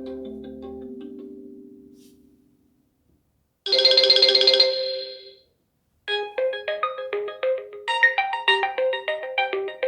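Realme GT5 Pro ringtones played in turn. One tone fades out over the first couple of seconds, and a short, bright chime sounds near the middle. From about six seconds in, a new ringtone starts: a quick, repeating melody of short, bright notes.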